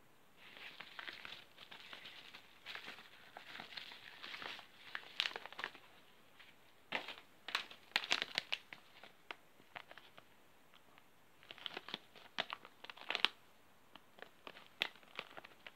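Small plastic tackle packets crinkling and rustling as they are handled. The sound comes in irregular bursts of sharp crackles with short quiet gaps between them.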